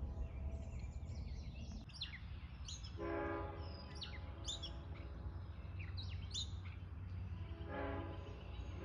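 Horn of an approaching Long Island Rail Road diesel train, two short blasts of a chord about three seconds in and near the end, over a steady low rumble. Birds chirp in short, sharp calls in between.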